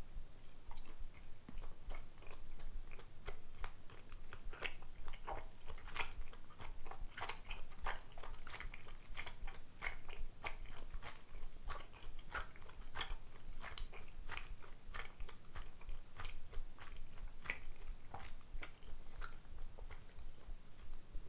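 Close-miked chewing of soft, sticky rice dumplings (dango): a dense run of irregular wet clicks and smacks over a low background rumble.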